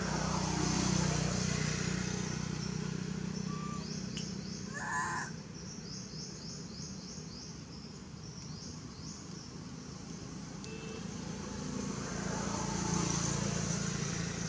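Outdoor background with a steady low motor-like hum that swells near the start and again near the end. A quick run of repeated high chirps sounds in the middle, and one brief call comes about five seconds in.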